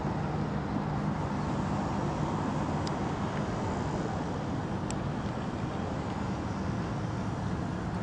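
Steady hum of car engines and road traffic.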